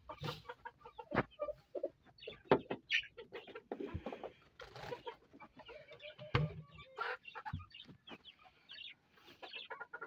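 Chickens clucking on and off, mixed with scattered short knocks and clicks.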